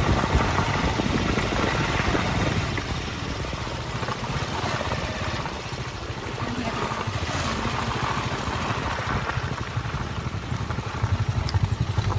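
A small engine, of the motorcycle kind, running steadily, with an even pulsing beat in its sound near the end.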